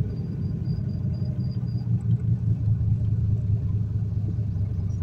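Turbocharged 351 Windsor V8 of a Fox-body Mustang running at a steady cruise, heard from inside the cabin as a low, even drone; the engine is running well.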